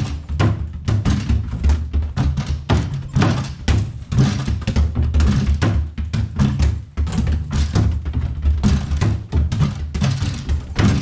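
Mini basketballs thudding again and again against the backboard, rim and wooden ramp of a home-built arcade basketball machine as shots are taken in quick succession: several irregular thuds a second.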